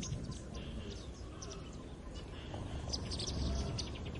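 Small birds chirping and twittering in quick short notes over a steady low rumble of outdoor background noise.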